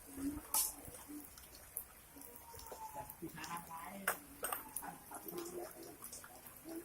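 Light rain falling, with scattered drips and taps, and faint voices in the background.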